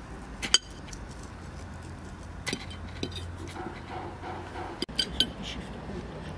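Cutlery and china clinking at a dinner table: a few short, sharp clinks of a fork and spoon against plates and a small glass dish, the loudest about half a second in and two close together near the end.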